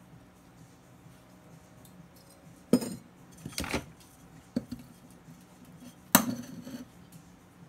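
A small terracotta pot knocking and clinking against a countertop as a plant is worked out of it and the pot is set down: a few sharp knocks, the loudest about three and six seconds in.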